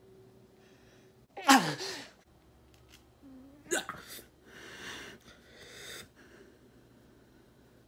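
A man's two short pained cries, each dropping in pitch, about two seconds apart, then sharp breaths: the reaction to pricking his fingertip with a pin to draw blood.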